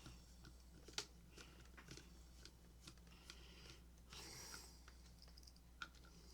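Faint, scattered clicks and light taps of a small plastic speaker and tools being handled on a workbench during disassembly, with a brief scraping rustle about four seconds in, over a steady low hum.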